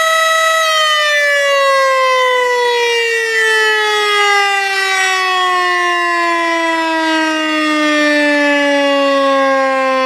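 Outdoor tornado warning siren sounding one long tone that holds steady for about half a second, then winds down, its pitch falling slowly and steadily to well below where it started.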